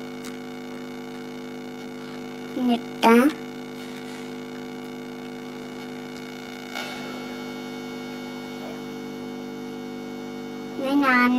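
Steady electrical hum, with a child's short voiced sounds twice, about three seconds in and again near the end.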